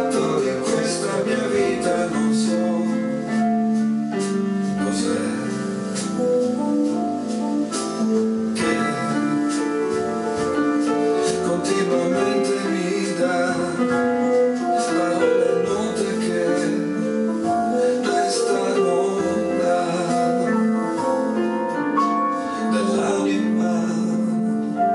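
Electronic keyboard music: piano-voiced chords with a melody and bass line played on a Roland E-86 keyboard, in an instrumental passage of a slow ballad.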